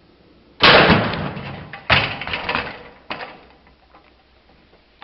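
Three sudden knocks about a second apart, the first the loudest, each trailing off: a plastic toy monster truck crashing and clattering off its jump ramp.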